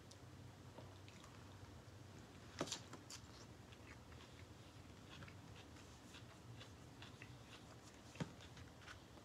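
Faint chewing with small wet mouth clicks and smacks from a person eating a soft taco, plus two sharper clicks, one about two and a half seconds in and one near the end.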